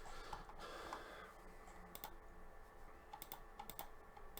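Faint, scattered clicks of typing on a computer keyboard, a few at a time with short pauses.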